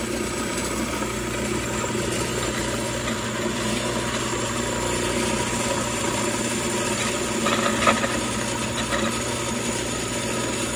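A power tool's motor running steadily, with one sharp knock about eight seconds in.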